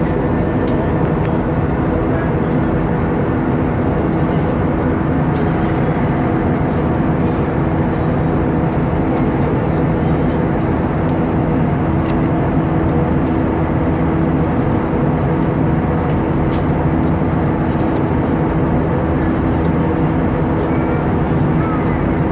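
Airbus A320-232's IAE V2500 engines and airflow running at high power, heard from inside the passenger cabin: a loud, even rush with steady low hums and no change in level.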